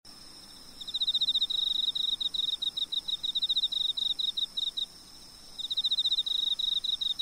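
Cricket chirping in fast trains of high pulses, with a short break about five seconds in, over a steady high-pitched drone.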